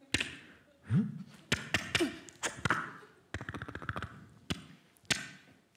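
Vocal sound effects made by mouth into a handheld microphone: a string of clicks, pops and knocks with a few short swooping tones, and a fast rattle of clicks about three and a half seconds in.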